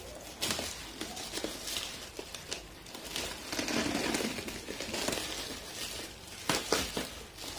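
Scissors cutting open a bubble-wrap parcel: the plastic crinkles and rustles as the blades snip through, loudest in the middle, with a few sharp snaps near the end.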